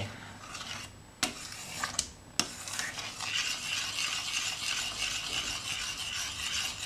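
A utensil stirring and scraping the bottom of a stainless steel pot of oat-milk custard, worked round the base to keep the thickening custard from sticking. There are three sharp knocks against the pot in the first couple of seconds, then steady scraping from about three seconds in.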